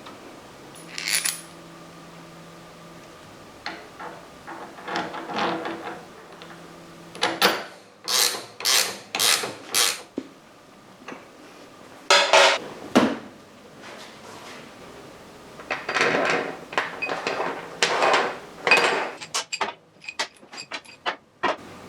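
Metal tools and parts clinking and knocking in irregular bursts, as in motorcycle rear-suspension assembly work, with a quick run of four strong strokes about eight seconds in and a flurry of light taps near the end.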